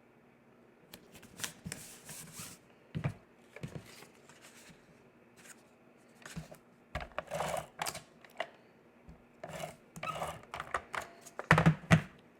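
Cardstock pieces being handled, slid together and pressed in place: irregular rubbing and rustling of paper, with a few sharper taps near the end.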